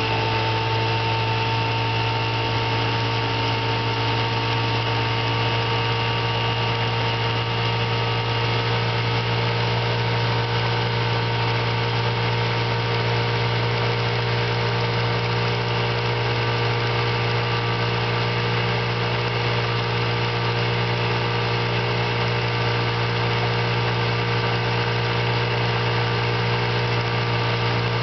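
1956 Johnson 7.5 hp two-cylinder two-stroke outboard motor running steadily under way at an even throttle. It is freshly tuned up, with new points, coils, condensers and plugs and a cleaned carburetor, and is running nicely.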